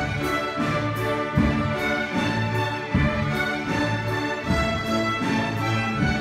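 A school string orchestra of violins and cellos playing a lively piece together, with strong accented low notes about every second and a half.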